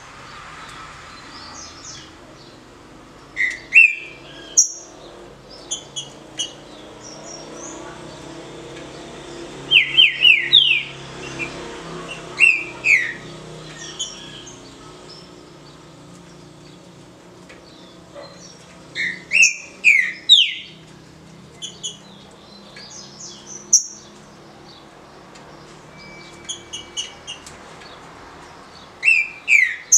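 Green-winged saltator (trinca-ferro) singing its short 'canto de roda' song: about five brief phrases of loud, clear whistled notes, a few seconds apart, with fainter high chirps between them.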